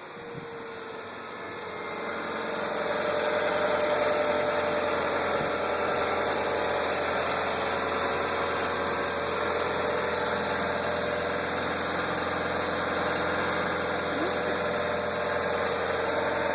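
Car engine idling just after a cold start, with the noise that appears only when the engine is started cold: a steady whine over the engine hum, growing louder over the first few seconds and then holding.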